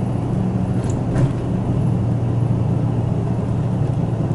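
Cabin noise of a moving bus: a steady low engine hum over road noise.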